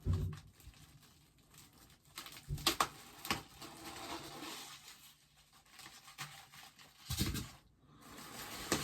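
Cardboard box and packaging being handled: a few dull knocks and scrapes, with light rustling between.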